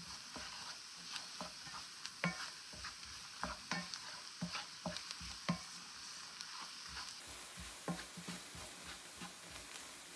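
Wooden spatula stirring and scraping diced vegetables and flour around a nonstick frying pan, with irregular light knocks against the pan over a faint sizzle of flour cooking in oil for a roux.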